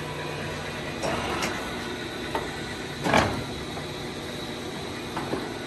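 Metal clicks and clunks from the carriage handwheels and levers of a large Poreba engine lathe being worked by hand, the loudest clunk about three seconds in, over a steady machine hum.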